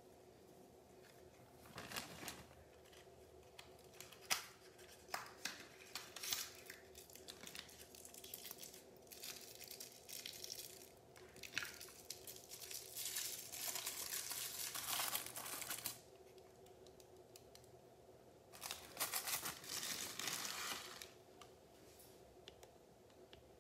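Paper packaging and tags being handled: irregular crinkling, rustling and tearing, with a few sharp clicks a few seconds in. A long stretch of dense crinkling in the middle stops, then another shorter bout comes near the end.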